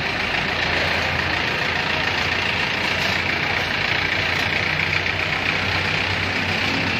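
Four-wheel farm tractor's diesel engine running steadily, on a check run after its cracked crankcase was welded.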